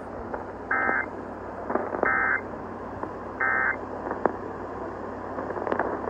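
Emergency Alert System end-of-message data bursts, three short buzzy warbling tone bursts evenly spaced about 1.3 seconds apart, played through an AM radio's speaker over steady static hiss and crackle. They mark the end of the tornado warning broadcast.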